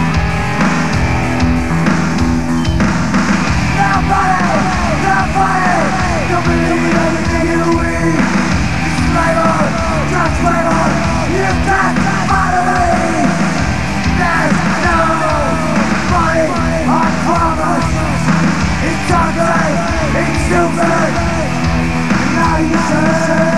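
Live industrial rock band playing loud and fast: drums, bass and distorted electric guitar, with yelled vocals over them from a few seconds in.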